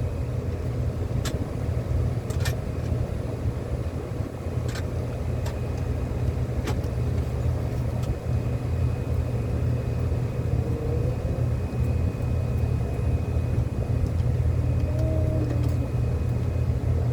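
Steady low rumble of running machinery, with a few sharp clicks in the first seven seconds.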